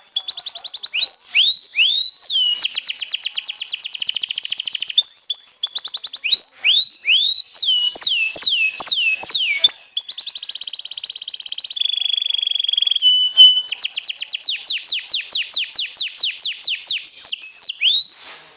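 Canary singing a long, varied song: runs of sweeping whistled notes about three or four a second, fast rattling trills, and one held steady whistle a little past the middle.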